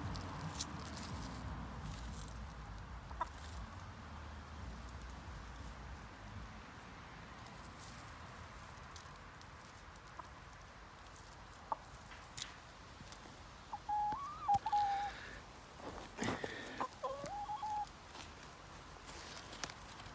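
Hen clucking, a short series of calls about two-thirds of the way in, with a few faint ticks earlier.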